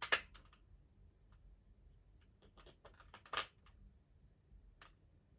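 Scattered clicks and taps of a hard plastic toy being handled. Two louder clicks come just after the start and about three and a half seconds in.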